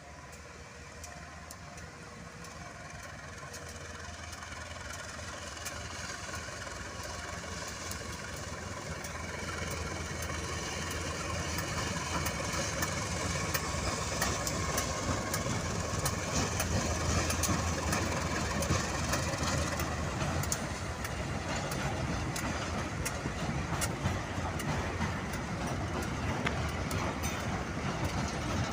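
A train approaching, its engine and running noise growing steadily louder, with clicks from the wheels and rails coming thicker in the second half.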